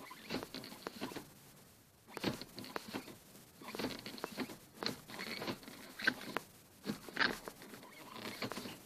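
Ford Mondeo 5-speed manual gearbox shift mechanism creaking and squeaking in repeated short bursts as the gear lever is moved through the gears, the sign of a fault in the gearbox shift.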